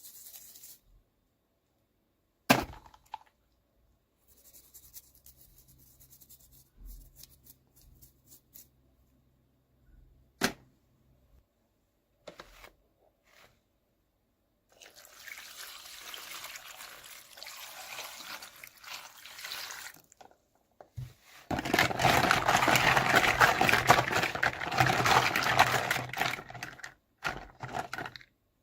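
Hands unpacking miniature toys: a couple of sharp clicks and a faint crackle, then a stretch of rustling that grows louder and denser near the end.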